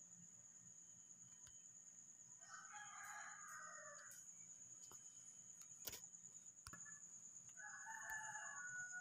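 Faint rooster crowing twice, once about two and a half seconds in and again near the end, over a steady faint high-pitched whine, with a single sharp click in between.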